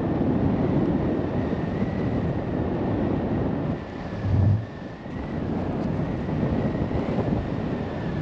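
Wind noise on the microphone of a paraglider in flight: a steady rushing roar of airflow, with one louder low buffeting thump a little past the middle. A faint, steady high-pitched tone sits under the wind.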